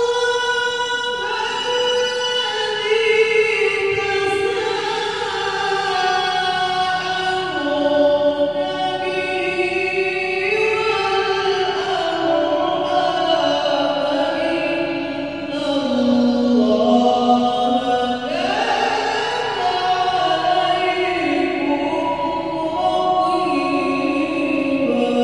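A man's voice reciting the Qur'an in the melodic tilawah style through a microphone, in long ornamented phrases that glide up and down in pitch. One phrase climbs steeply about three quarters of the way through.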